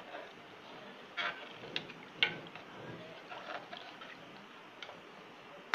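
Metal slotted spatula stirring a watery chicken-and-vegetable mixture in a metal pan: liquid sloshing, with several sharp clinks and scrapes of the spatula against the pan, the loudest about two seconds in.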